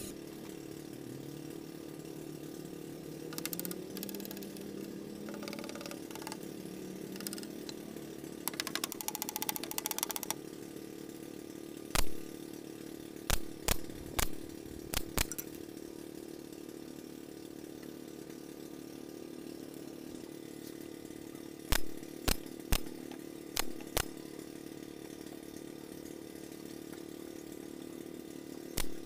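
Handheld cordless drill running in short bursts, a cluster of four about twelve seconds in and another cluster about twenty-two seconds in, over a steady low hum. A quick run of rapid clicks comes a little before the first cluster.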